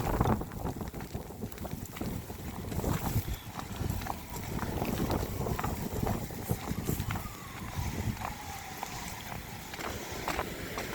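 Wind buffeting the microphone in a snowstorm, with scattered crunches and knocks. A faint tone falls slowly in pitch about seven seconds in.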